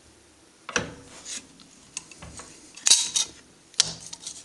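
A few sharp metallic clinks and knocks as the cast aluminium starter motor end case is handled and shifted in a steel bench vise, the loudest about three seconds in.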